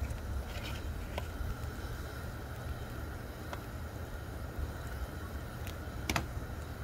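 Small open fires burning: a propane flame through lava rock in an ammo-can fire pit and a paraffin wax fire pit, with a low steady rumble and a few sharp crackles, the loudest about six seconds in.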